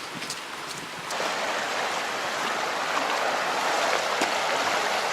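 Floodwater rushing, a steady noise that gets louder about a second in.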